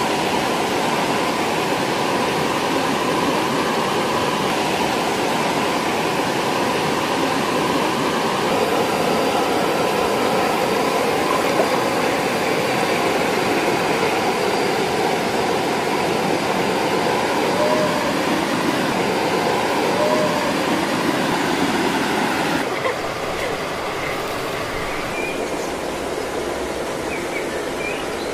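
Steady rush of a waterfall and stream. About 23 seconds in it drops a little in level and thins.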